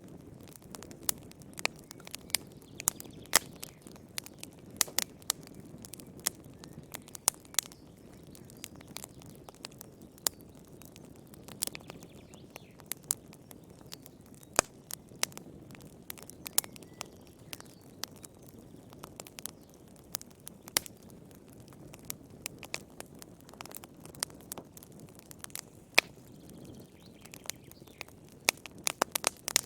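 Wood fire crackling in a fireplace: irregular sharp pops and snaps, several a second, over a soft low rush of flame.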